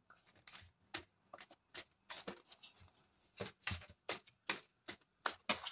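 A tarot deck being shuffled by hand: a run of short, sharp card flicks and slaps, about three or four a second at uneven spacing.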